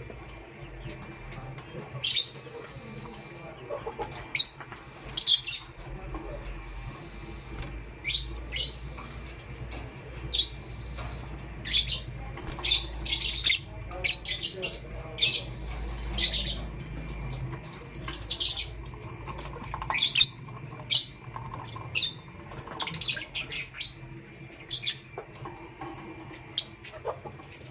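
Lovebirds chirping: short, sharp high-pitched chirps in irregular bursts, some single and some in quick runs, over a faint steady low hum.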